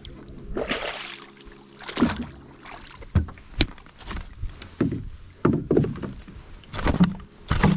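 A small rowing boat being moved through shallow water by oar: a string of splashing strokes and knocks of the oar against the boat, about one a second.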